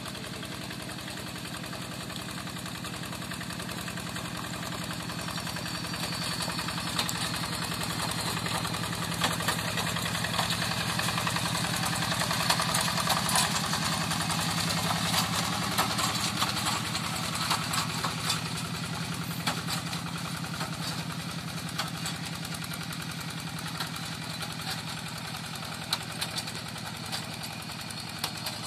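Yanmar Bromo Pro hand tractor's diesel engine running steadily, a little louder through the middle stretch, with scattered sharp clicks and knocks on top.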